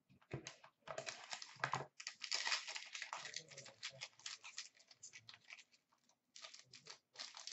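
Clear plastic wrapping being torn and crinkled off a hockey card box by hand: a dense, irregular run of crackles and small clicks, pausing briefly past the middle and then starting again.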